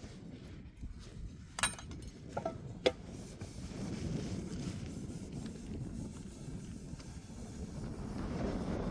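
Wind buffeting the microphone: a low rumble that grows louder toward the end, with a few sharp clicks or knocks about two to three seconds in.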